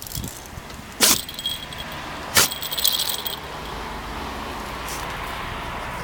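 A dog sneezing twice, big exaggerated sneezes about a second and a half apart, set off by irritation from a scratch on its nose. A light metallic jingle rings between and just after the sneezes.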